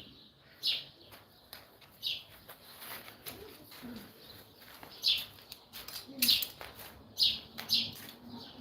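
Birds chirping: short, high chirps at irregular intervals, some in quick pairs, becoming more frequent after about five seconds.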